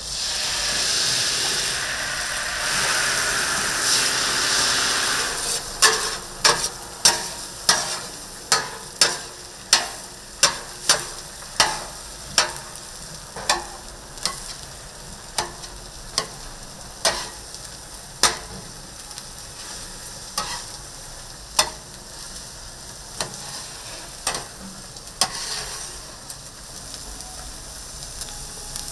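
Food sizzling loudly on a hot griddle, with a lower sizzle after about five seconds. Then comes a run of sharp metal taps from a cooking utensil, about two a second at first and sparser later on.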